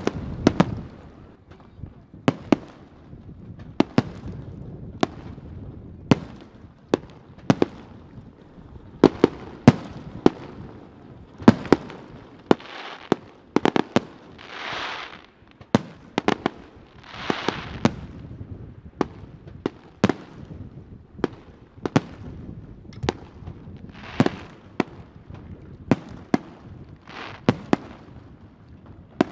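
Aerial firework shells bursting in a display: a running series of sharp bangs, irregularly spaced at about one to two a second, with several hissing swells lasting about a second each.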